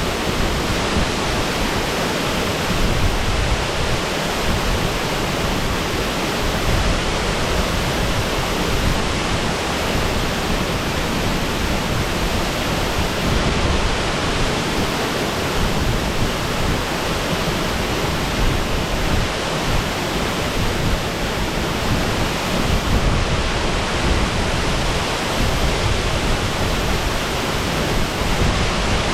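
Steady rushing of water falling at Shasui Falls, a continuous even noise with no breaks.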